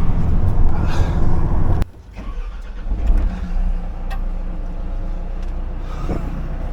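A road vehicle driving, with engine and road rumble. The noise drops suddenly about two seconds in, then a quieter steady engine hum.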